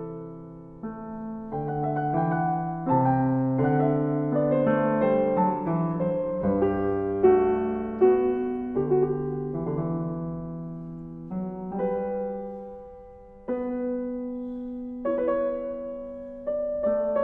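Background piano music: a slow melody of struck notes and chords, each note fading after it sounds.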